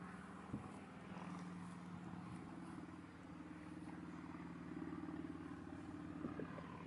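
A faint, steady engine hum with a slight pitch drift.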